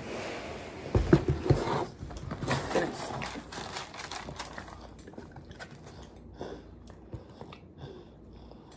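Cardboard pizza box knocking against the table a few times about a second in as it is closed and stood up, followed by soft rustling and small clicks of food and containers being handled.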